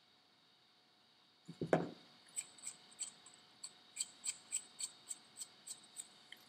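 Small, faint metallic ticks, about three or four a second, as the shaft nut is turned by hand onto the threaded end of a turbocharger's turbine shaft. A single dull knock from handling comes about a second and a half in, before the ticking starts.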